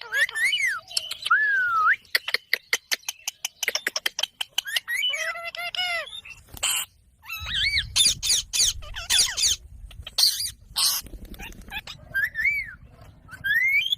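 Ringneck parrot calling: rising and falling whistled calls, a fast run of sharp clicks, then several short harsh screeches in the second half.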